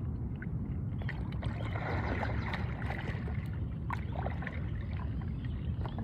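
Stand-up paddle dipping and pulling through calm lake water, with a swishing stroke about two seconds in and a few small knocks, over a steady low rumble.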